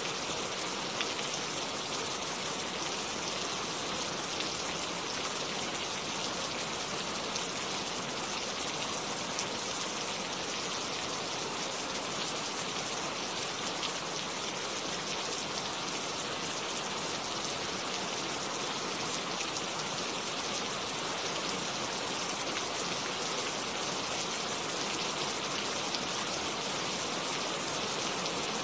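Steady rain: an even hiss scattered with many small drop ticks, with no thunder.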